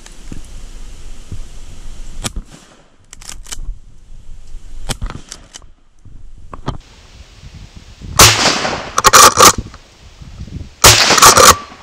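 Shotgun firing at a duck flying over a pond: a few faint sharp cracks in the first seven seconds, then two very loud blasts about three seconds apart near the end.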